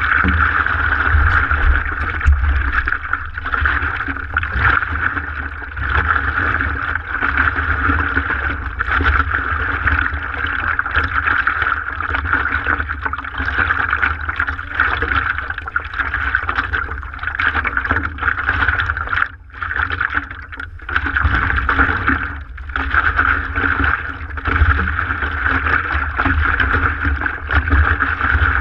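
Water rushing and splashing along the nose of a stand-up paddleboard, picked up close by a board-mounted GoPro, over a low rumble. The noise swells and dips without a break, briefly dropping away about two-thirds of the way through.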